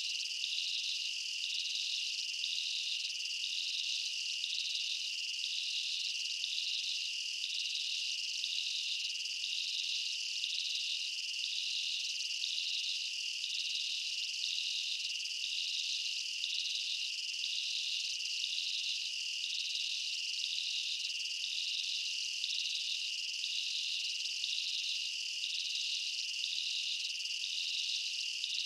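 Insect chorus: a steady high-pitched buzzing drone, with a second insect's pulsing chirp repeating about one and a half times a second above it.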